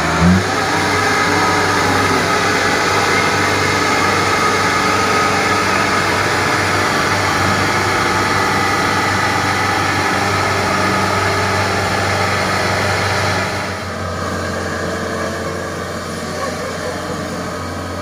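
Kubota DC-70 crawler combine harvester's diesel engine running loud and steady, with a short rev rising in pitch right at the start. The sound drops somewhat quieter about thirteen and a half seconds in.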